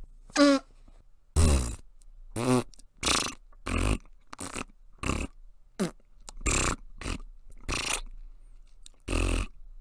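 A string of about a dozen short fart sounds, some with a pitched buzz that slides in pitch, others rougher, spaced about half a second to a second apart. It is a sentence spoken in Flatula, a constructed language made of farts.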